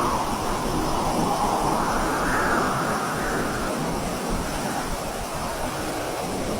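Strong storm wind blowing, a steady rushing noise that swells and eases every couple of seconds.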